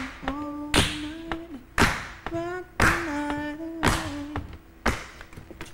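A man singing short wordless notes and slides over a steady beat of sharp hits about once a second, rehearsing a dance routine.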